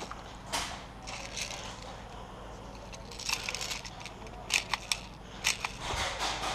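Footsteps crunching on dry leaves and twigs, with several sharp clicks and snaps, a cluster of them a bit past the middle, and a single low thump near the end.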